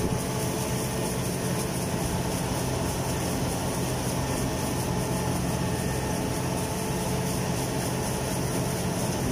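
Kubota rice combine harvester's diesel engine running steadily, heard from on board the machine as it moves through a waterlogged paddy.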